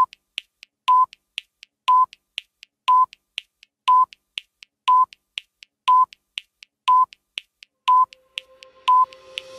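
Countdown leader: a short high beep once a second, ten in all, with light ticks between the beeps.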